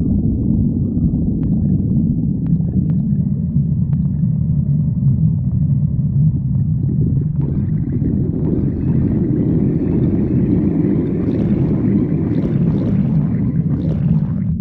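Stomach growling: one long, unbroken low rumble that grows fuller and brighter from about halfway through, then thins again just at the end.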